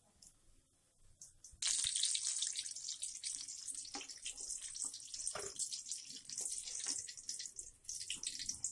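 Batter-coated green chillies (mirchi bhajiye) sizzling in hot oil in a karahi on their second frying: a dense crackling hiss that starts suddenly about a second and a half in. Short clicks and scrapes of a metal slotted spoon turning them sound through it.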